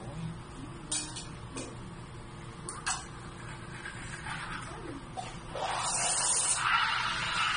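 Café espresso machine running as it pours two shots into cups: a steady hum with a few sharp clicks, then a loud hiss that builds up from about five and a half seconds in.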